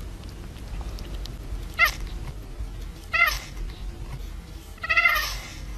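A cat meowing three times, short whining calls about a second and a half apart, the last the longest. It is a cat complaining at another cat crowding in on shared food.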